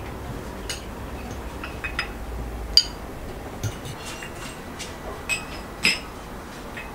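Forks clinking on plates and tea glasses being set down at a table: about six scattered, ringing clinks, the sharpest about three seconds in.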